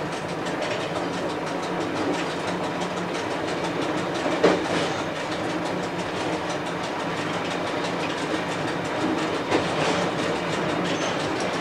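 Bluebird diesel railcar running on broad-gauge track, heard from on board: a steady running noise with wheels clicking over rail joints. A sharper knock comes about four and a half seconds in and another about nine and a half seconds in.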